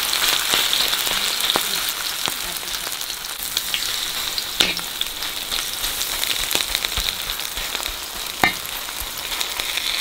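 Battered seafood frying in hot oil in a pan: a steady crackling sizzle, with two sharper clicks, one near the middle and one near the end.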